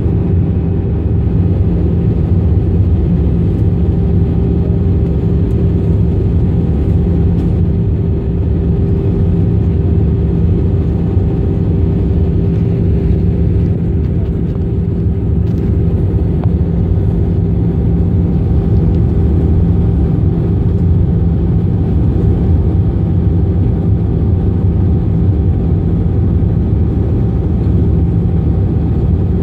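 Steady cabin noise inside an Airbus A320 during its descent to land, heard from a window seat over the wing: the low drone of the engine and airflow, with a few steady humming tones.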